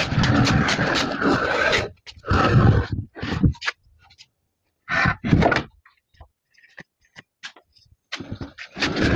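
Heavy wooden blocks being dragged and slid across a rough concrete floor: one long scrape of about two seconds, then shorter scrapes and bumps.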